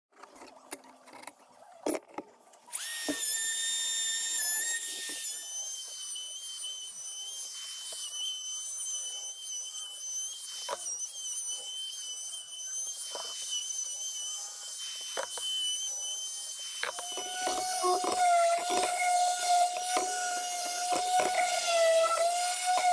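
Electric random orbital sander with a vacuum hose attached, sanding a wooden frame. A few knocks, then a steady high-pitched motor whine comes on about three seconds in, and a second, lower whine joins past the halfway point.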